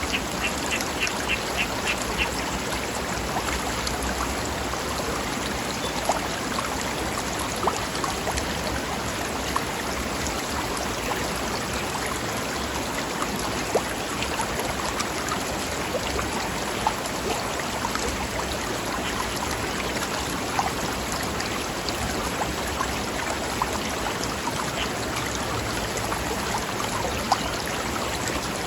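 Forest river flowing over rocks, a steady rush of water with scattered small splashes. In the first two seconds a bird gives a quick run of short chirps, about five a second.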